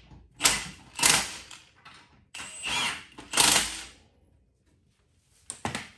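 Cordless power driver running in the footwell's mounting bolts on an ATV frame: several short bursts in the first four seconds, and another brief one near the end.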